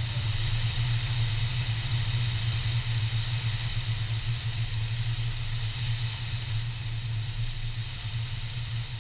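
An engine running steadily at constant speed: a low drone with a faint high whine above it.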